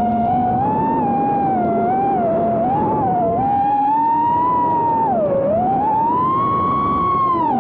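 Brushless motors of a 5-inch FPV racing quadcopter (T-motor motors) whining, the pitch sliding up and down with the throttle. It drops sharply about five and a half seconds in, climbs to its highest a little over a second later and falls again near the end.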